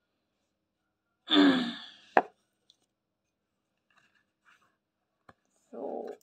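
Tarot cards being handled: a loud brief swish followed by a sharp snap of a card, then a few faint ticks and a short rustle near the end.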